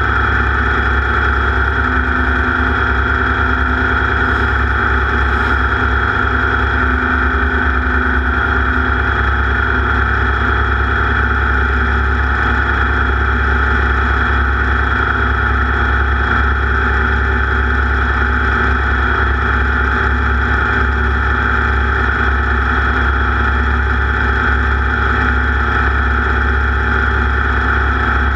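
Off-road race vehicle's engine running at a steady pitch during a race lap, a loud continuous drone.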